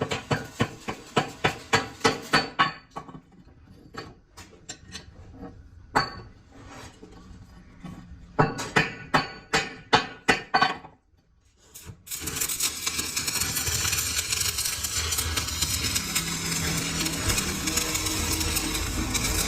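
A hammer striking metal in quick runs of blows, about three a second, with a pause between the runs. About 12 seconds in, a steady dense machine noise starts and runs on.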